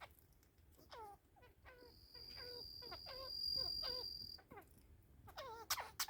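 A budgerigar chirping: a string of short chirps, each falling in pitch, about two a second. A steady high-pitched tone is held for a couple of seconds in the middle.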